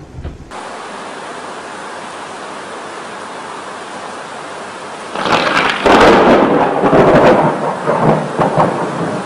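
Steady rain hiss, then about five seconds in a loud thunderclap from a lightning strike: a sudden crackling crash that rumbles on in several surges for about three seconds.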